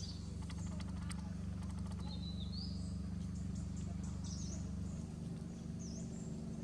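Birds chirping, short rising and falling calls scattered through, over a steady low hum, with a quick run of clicks about half a second to a second and a half in.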